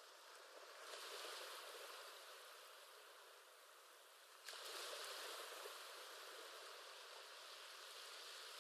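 Faint ocean-wave ambience: a soft, steady rush of surf that swells about a second in, eases, and swells again more suddenly about halfway through.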